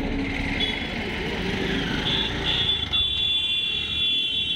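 Road traffic passing close by, engines running. A high-pitched tone sounds briefly a few times, then holds steadily for about the last second and a half.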